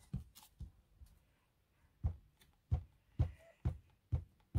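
Glue stick being rubbed over paper in quick strokes on a tabletop, giving a regular series of light thumps about twice a second that starts about two seconds in.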